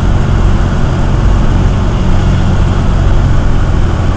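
Cessna 172R's four-cylinder Lycoming engine and propeller running, a loud steady drone heard from inside the cabin.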